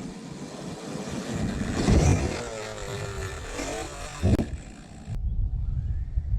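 Traxxas X-Maxx RC monster truck driving over dirt, its brushless electric motor whining up and down with the throttle. There are two knocks, about two seconds in and just past four seconds. About five seconds in the sound changes suddenly to a low rumble with a faint rising whine.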